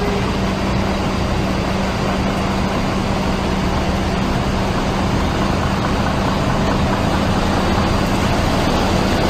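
A vehicle engine idling with a constant low hum under a dense, even noise of heavy rain and running floodwater.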